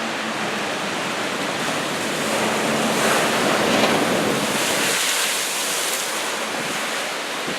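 Rough, storm-driven surf breaking on a sand beach after a typhoon, a steady wash that swells about halfway through as a larger wave comes in, with some wind.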